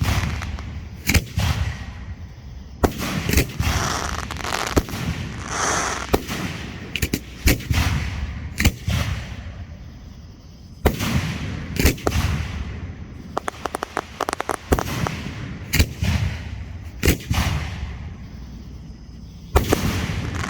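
Fireworks going off: sharp bangs every second or two, with rumbling between them, and a quick string of crackles a little past the middle.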